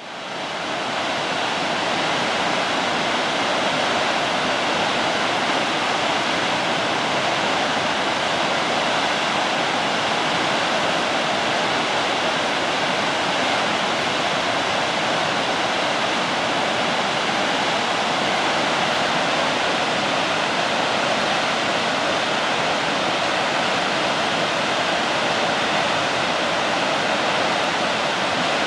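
Tower Falls, a tall waterfall, plunging steadily: an even, unbroken rush of falling water that fades in over the first second or two.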